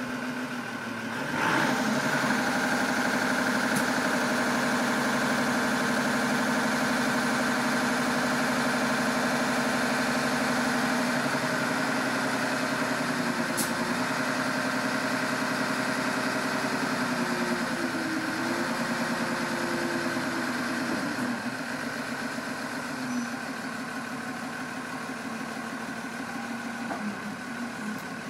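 1994 Hyster H12.00XL forklift's Perkins diesel engine running. Its sound rises sharply about a second and a half in and holds steady while the mast lifts the forks. A tone wavers in pitch partway through, and the engine settles lower after about twenty seconds.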